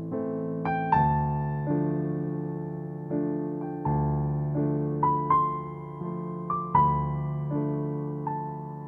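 Background music: a slow, gentle keyboard melody in the sound of a piano, single notes and chords struck about every half second to a second and left to ring and fade.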